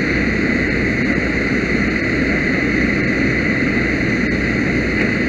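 A motor running steadily and loudly, a constant drone with hiss and no change in pitch.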